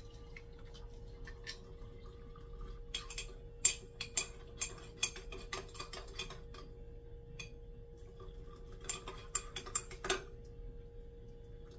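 Light clinks and taps of kitchenware while hot water is poured from a stainless steel kettle into a pour-over coffee dripper on a mug. The clinks come in two clusters, the second ending about ten seconds in, over a steady faint hum.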